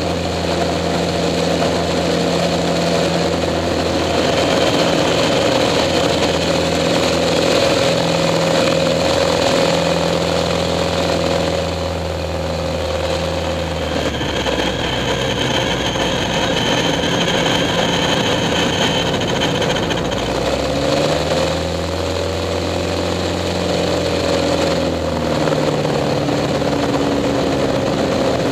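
Pitts S-2A biplane's engine and propeller running loud and steady, heard from the cockpit over a rush of wind. The engine note drops and shifts about halfway through, then swings up and down again about two-thirds of the way in as power changes through the aerobatic manoeuvres.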